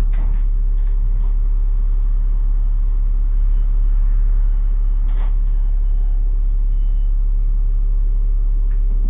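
City bus running with a steady low drone and hum. Two faint knocks come through, just after the start and about five seconds in.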